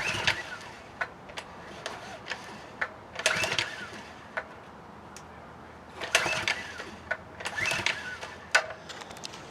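Honda GX100 engine being pull-started several times with its recoil starter, cranking in short bursts without catching. It is not getting fuel because a carburettor orifice is plugged with old gas.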